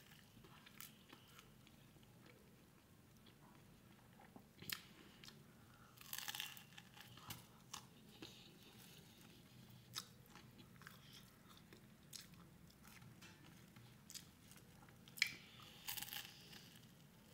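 Faint chewing of a salami-filled bread roll, with several short crunching bites into the crust, the clearest about six seconds in and again near the end.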